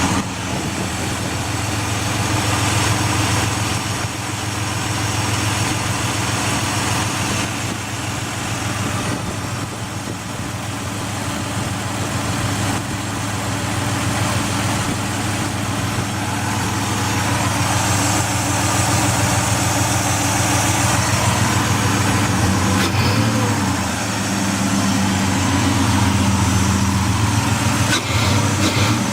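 2004 Ford Escape XLT's 3.0-litre V6 idling steadily, an engine with a rough idle that is being listened to for a ticking.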